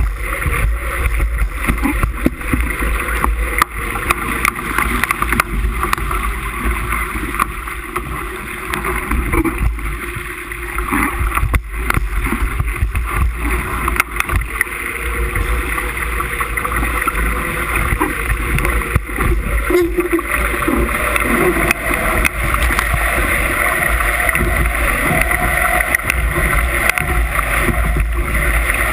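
Wind buffeting the microphone over rushing water as a Musto skiff sails in gusty wind, steady throughout with a few brief knocks.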